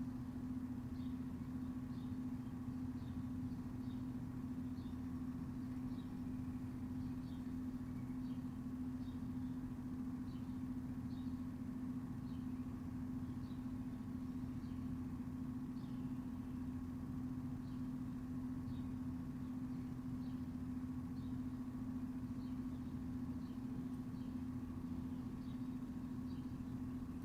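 A steady machine-like hum on one low note, with a fainter higher tone above it, and faint short high chirps recurring irregularly about once or twice a second.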